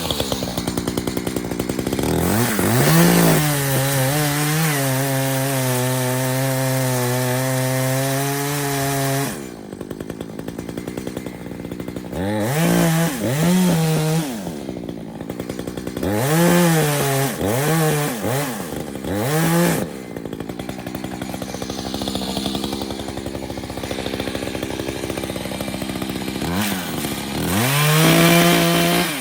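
Two-stroke chainsaw held at high revs for about six seconds, then dropping back. It gets several short blips of throttle and is brought up to high revs again near the end.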